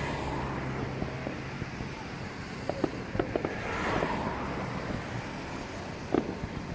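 Distant fireworks going off: scattered sharp pops and bangs, a cluster of them about halfway through and another near the end, over steady wind and crowd noise.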